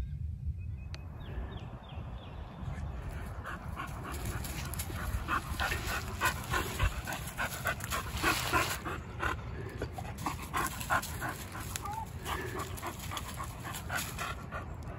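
Boxer dog panting with her tongue out, a quick run of short breaths from about three seconds in.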